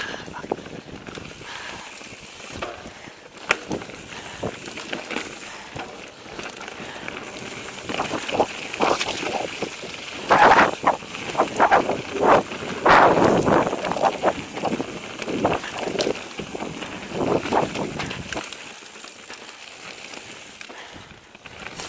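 Mountain bike rolling fast down a stony singletrack: tyres crunching over gravel and rocks, with the bike rattling and clattering over the bumps. The clatter is busiest in the middle and eases off near the end.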